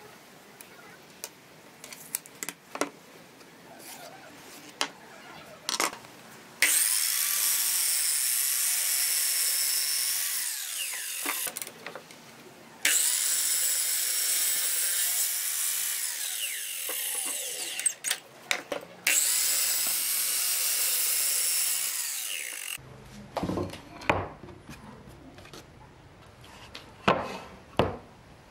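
Sliding compound miter saw running through three cuts in a wooden board, each run starting suddenly and lasting about four to five seconds, with a high whine over the cutting noise. Light taps and knocks of wood being handled come before and after the cuts.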